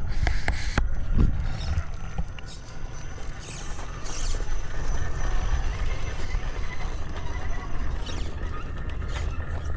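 Low wind rumble on the microphone, with a few sharp clacks in the first second or so and lighter clicks later, as small 1/10-scale RC rock crawlers clamber over rocks.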